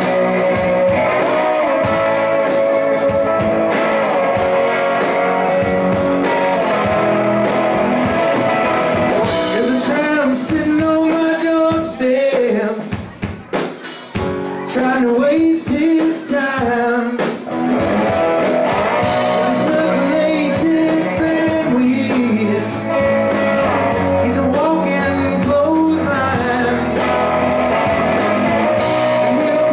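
Live rock band playing electric and acoustic guitars with bass guitar, and a man singing lead. The music is loud and steady, and the band drops back briefly about halfway through.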